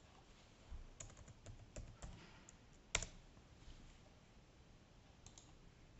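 Faint computer keyboard typing: a quick run of key taps lasting about a second and a half, then one louder, sharper click about three seconds in and two faint clicks near the end.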